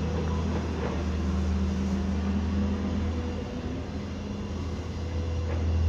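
The engine of a piece of heavy construction machinery running steadily with a low hum.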